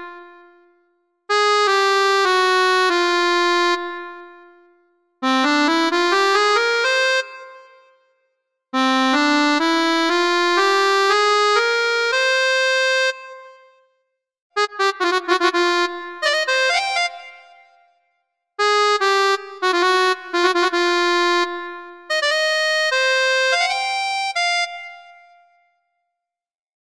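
Electronic keyboard playing a melody line in about six short phrases, with held notes and quick rising runs. Each phrase fades out before a brief pause.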